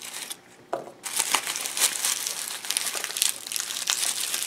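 Dry papery skins of an elephant garlic bulb crinkling and crackling as fingers peel it and pull cloves apart. Quieter in the first second, then a near-continuous rustle of small crackles and clicks.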